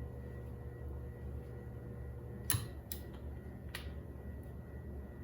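Stepper motor running at a steady speed: a low hum with a faint steady whine. Three sharp clicks about halfway through, the first the loudest.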